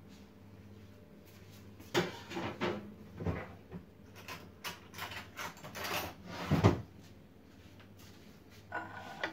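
Light knocks and scrapes of dishes being handled on a stone countertop: a cluster of clatters starting about two seconds in, the sharpest knock near the end of it, and one more small knock near the end.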